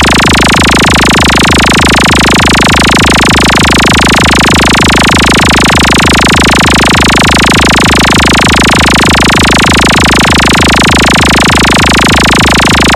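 Electronic DJ sound-check effect: a loud, dense wall of noise over a fast, even pulsing deep bass, with no melody or voice.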